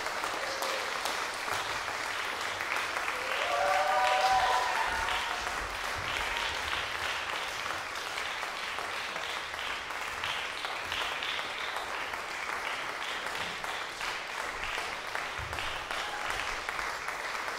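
Audience applauding steadily, swelling briefly about four seconds in.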